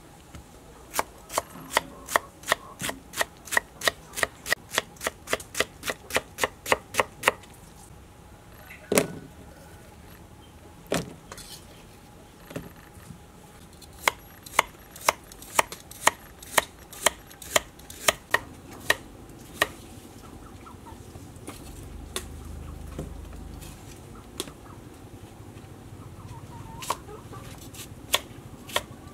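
Kitchen knife chopping through pineapple, carrot and onion onto a thick round wooden chopping block: sharp knocks in quick runs of about three a second, with single strikes between the runs.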